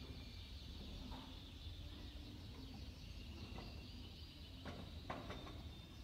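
Many caged songbirds chirping and twittering at once, a faint steady high chatter with a few sharper calls near the end, over a low steady rumble.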